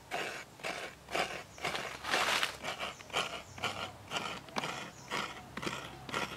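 A fresh coconut half being scraped against a coconut grater, shredding out its white flesh in rhythmic rasping strokes about two a second. One longer, louder stroke comes a little after two seconds in.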